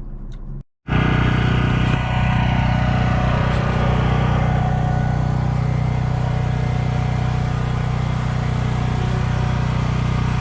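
Car running steadily, a constant engine drone with road noise. It starts abruptly about a second in, right after a brief silent cut.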